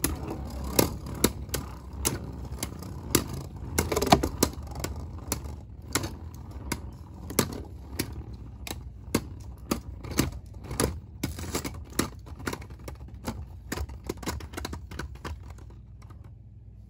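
LEGO-built beyblades spinning and clashing in a plastic bowl stadium: irregular sharp clacks as they hit each other and the bowl. The hits are frequent at first, then thin out and grow fainter as the tops slow and stop near the end.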